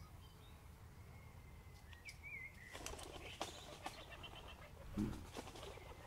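Quiet background with a few faint bird chirps and some light clicks.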